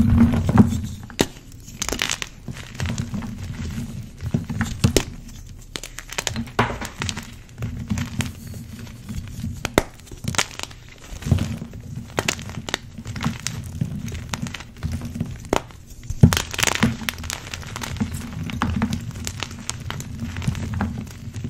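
Bare hands crushing and squeezing fresh blocks of NEXO gym chalk and its loose powder: a run of irregular crunches and sharp cracks as the chalk chunks break and crumble under the fingers, over a low rumble of handling.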